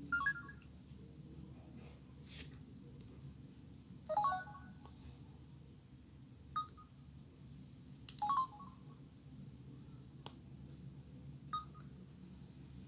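Samsung Solstice SGH-A887 phone giving short electronic beeps: five brief blips, each a quick step of two or three tones, spaced a couple of seconds apart, with a couple of soft clicks between, over a steady low hum.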